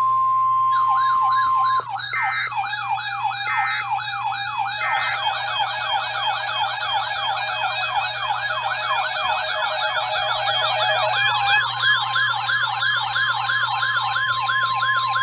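Steady NOAA Weather Radio warning alert tone, which gives way after about two seconds to several overlapping electronic sirens sweeping rapidly up and down in pitch, signalling a tornado warning. Three short higher beeps sound in the first five seconds, and the steady alert tone returns under the sirens near the end.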